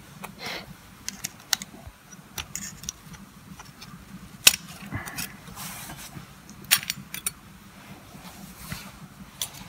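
Steel friction discs and plates from an all-wheel-drive coupling's clutch pack clinking and clicking against each other as they are handled. Irregular light clinks, the sharpest about halfway through.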